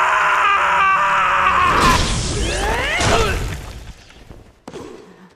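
Anime sword-fight sound effects: a loud, harsh sustained sound for about the first two seconds, then a few sweeping whooshes, fading, and a single sharp hit near the end.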